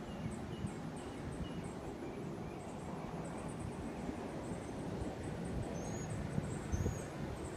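Outdoor summer ambience: a low, uneven rumbling noise with faint high chirps repeating about three times a second, and a few short higher curved notes in the second half.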